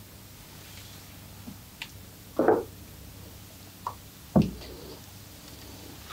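Massage sounds: a few light clicks, then two dull knocks about two seconds apart from hands striking or working a person's body.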